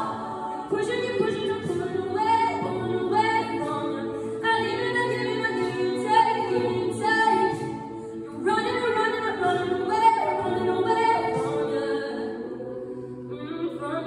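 Mixed a cappella vocal ensemble of young male and female singers performing a pop song in harmony with no instruments. There is a brief lull about eight seconds in.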